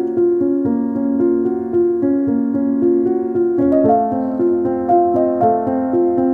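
Background music: a piano-like keyboard melody of evenly paced notes, about three a second, moving to a higher set of notes about halfway through.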